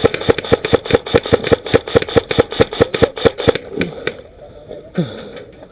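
Airsoft rifle firing a rapid, even string of shots, about six or seven a second, that stops about three and a half seconds in, followed by a few scattered single shots.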